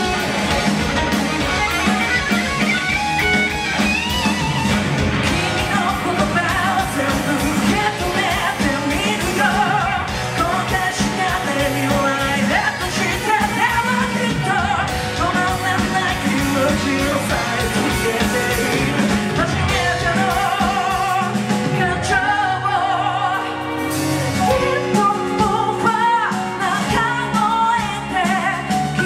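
Rock band playing live: drum kit, electric bass and electric guitar with a male lead vocal. About three quarters of the way through, the bass and drum pulse drop out for a moment, then return.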